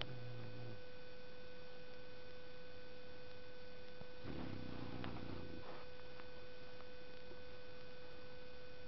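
A sleeping bulldog snoring: the end of one low snore at the start and one longer snore about four seconds in, over a steady faint electrical hum.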